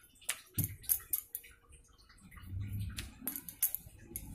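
Light, irregular clicks and knocks of a wooden rolling pin working on a marble rolling board as a circle of dough is rolled out.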